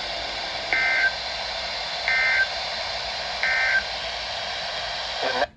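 Emergency Alert System end-of-message signal over radio hiss: three short bursts of warbling two-tone data (the EAS 'NNNN' end code), evenly spaced about a second and a half apart. The sound cuts off suddenly near the end.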